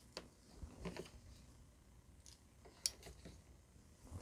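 Faint clicks and handling noise of spring-loaded alligator-clip test leads being opened and clipped onto the wire leads of a resistor, a few separate clicks with the sharpest nearly three seconds in.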